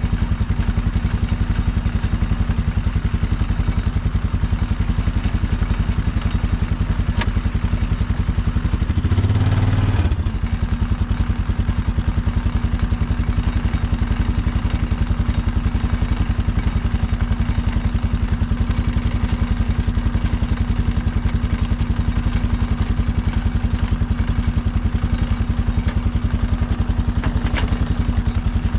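Large engine running steadily at a constant speed, with rapid even firing pulses and a brief louder low rumble about nine seconds in.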